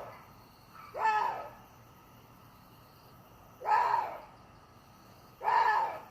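Water deer calling: three short barking calls, each about half a second long and arching up then down in pitch, spaced roughly two seconds apart.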